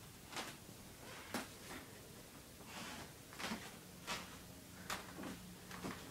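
Quiet room tone picked up by an iPod touch's built-in microphone while it is carried by hand: a low steady hum with faint soft knocks and rustles, roughly one a second.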